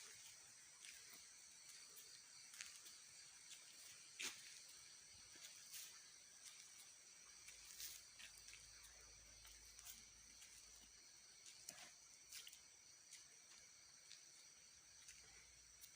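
Faint night chorus of crickets and other insects, a steady high-pitched trill, with scattered sharp clicks, the loudest about four seconds in.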